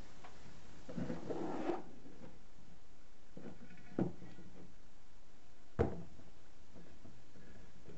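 Freshly painted differential cover being lifted and handled on a cardboard box: a rustle of paper and cardboard about a second in, then two short knocks, the second louder, as the cover is set down and moved.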